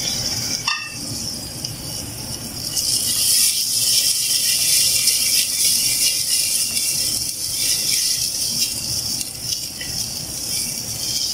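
Onions with ginger-garlic paste frying in olive oil in a clay pot, sizzling, while a wooden spoon stirs and scrapes against the clay. A single knock comes under a second in, and the sizzle grows louder about three seconds in.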